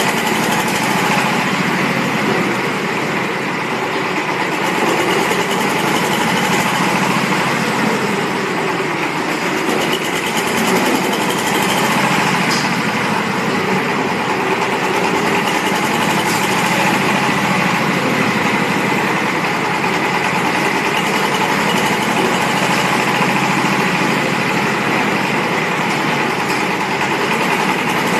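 Diesel engine of a concrete mixer running at a steady speed.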